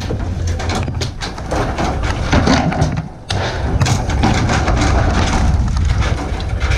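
Irregular knocks and clatter of wooden boards and roofing being pried loose and shifted with a steel crowbar while a shack roof is torn down, over a steady low rumble.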